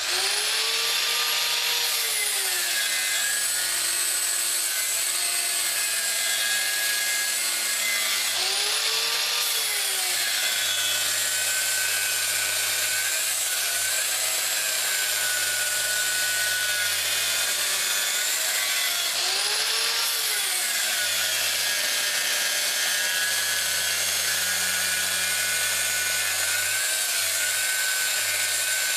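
Electric grinder with a 36-grit abrasive running against a dull, rusty steel lawn mower blade, sharpening its cutting edge. It starts abruptly and runs on as a steady, high whining grind, and its pitch wavers briefly three times as the load on the blade changes.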